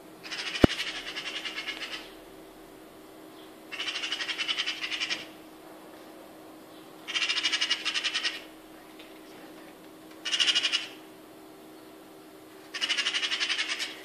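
Eurasian magpie giving its harsh rattling chatter in five bursts of about a second and a half, roughly every three seconds: the alarm chatter magpies use to scold a cat. A single sharp click sounds about half a second in.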